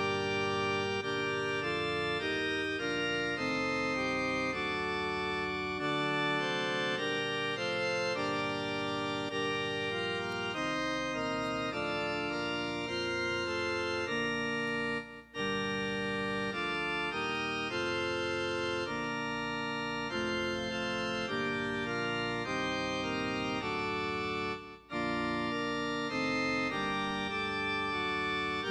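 Organ playing a slow piece in held chords that change about once a second, with two short breaks between phrases, about halfway and near the end.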